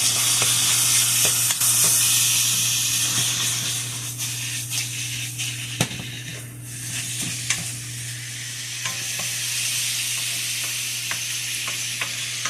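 Chicken frying in a hot pan over a gas fire, sizzling steadily while it is stirred, with a few sharp clicks of the utensil against the pan. The sizzle is loudest at first, eases about halfway through, then picks up again, over a steady low hum.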